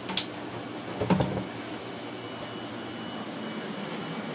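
A click, then a short cluster of knocks about a second in, from a white plastic pipe fitting being handled against the wall of a plastic tank while fitting a Uniseal. A steady mechanical hum runs underneath.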